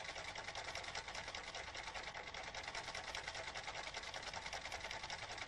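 Cam-driven fancy-stitch sewing machine running steadily, its needle mechanism clattering in a rapid, even rhythm as it sews a selected fancy stitch.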